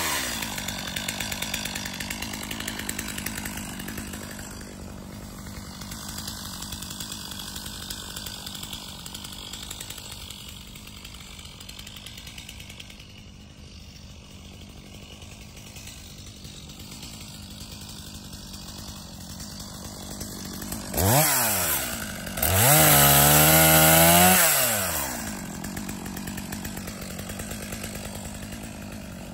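Two-stroke chainsaw engine coming off full throttle into a steady idle. About three quarters of the way through it is blipped once, then revved hard for about two seconds and dropped back to idle.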